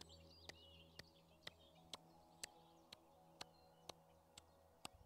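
A person clapping their hands in a steady rhythm, about two soft claps a second, as a Kundalini yoga clapping exercise. Birds chirp faintly in the background.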